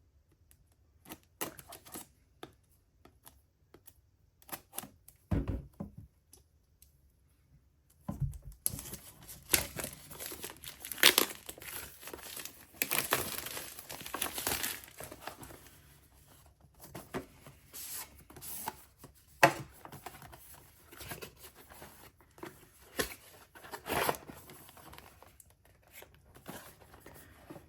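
A cardboard product box being opened and its packaging handled: a few scattered taps and a dull thump, then from about eight seconds in, packaging being torn open and crinkled, with sharp snaps.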